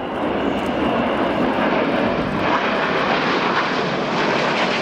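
Steady jet noise from a formation of five BAE Hawk T1 jets flying past, their Adour turbofan engines running.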